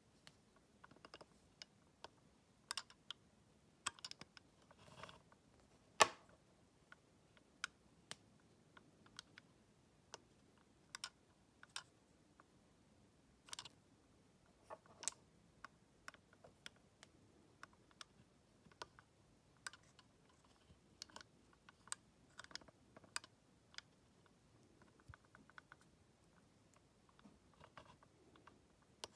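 Scattered small clicks and taps of batteries and a plastic analog battery tester being handled, the battery ends knocking against the tester's metal contacts; one louder click about six seconds in.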